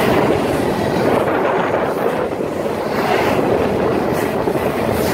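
Double-stack container cars of a BNSF freight train rolling past, a steady noise of steel wheels running on the rails.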